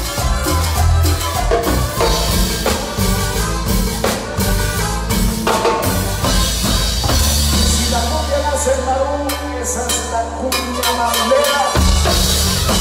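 Live Latin tropical band playing, with congas, drum kit, bass and horns. About seven seconds in the drums drop out under a long held bass note, and the full percussion rhythm comes back in near the end.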